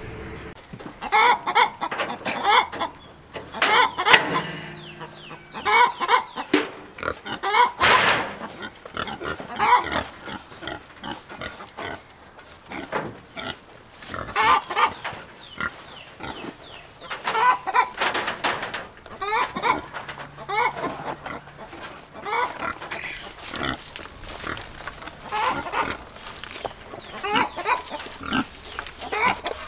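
Pigs grunting in short repeated calls, coming in bouts every second or two, with a sharp knock about eight seconds in.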